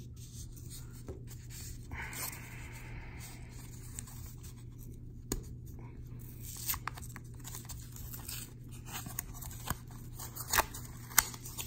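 Tape being torn off a cardboard mailer package, a rasping tear lasting about three seconds. After that come scattered light clicks and rustles as hard plastic card holders are handled.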